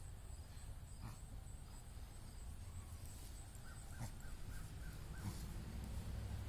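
Dog making repeated sharp sounds as it pulls air in through its nose: a few spread out, then a quick run of about six in the second half. The owner wonders whether this is a reverse sneeze.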